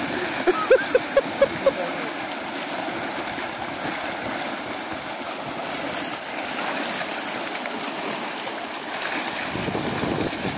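Water rushing and splashing in a shallow rocky stream as a dog wades and plunges through it. In the first two seconds a quick run of short high-pitched calls sounds, about four a second. Near the end there is a louder burst of low noise.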